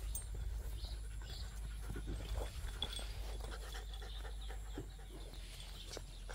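Beagle puppies panting and scuffling as they jump up at a person, with many small irregular noises from their movement.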